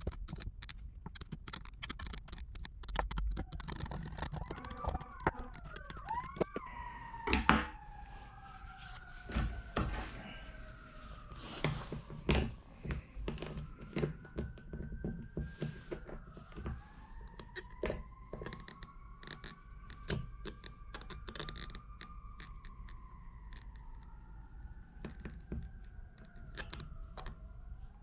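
Sirens wailing, their pitch rising and falling slowly, with two or more overlapping from a few seconds in. Irregular short clicks and knocks sound throughout, with a louder knock near the end.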